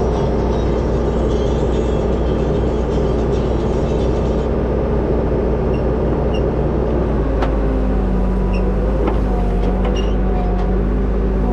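Backhoe loader's diesel engine running steadily under work, its drone dropping slightly in pitch about seven seconds in. A higher wavering whine and a few sharp clicks follow in the second half.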